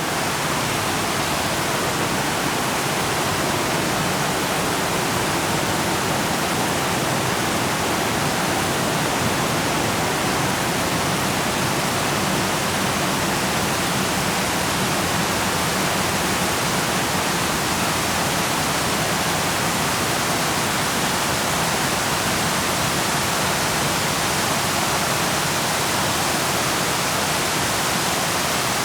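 A steady, even rushing hiss with no change in level.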